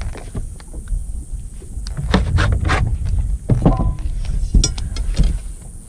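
Knocks and clatters of gear being handled on a fiberglass bass boat's deck, several sharp ones from about two to five seconds in, over a steady low rumble of wind on the microphone.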